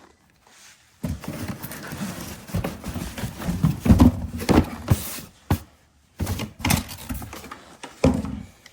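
A cardboard box and its packaging being opened and unpacked by hand: irregular rustling with hollow knocks and clunks, starting about a second in and stopping near the end.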